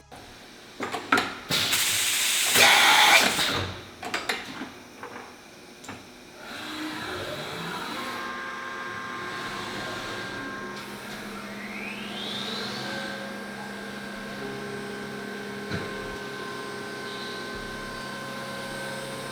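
A loud hissing blast lasting about two seconds, then shop machinery running, with a rising whine that settles into a steady hum of several tones.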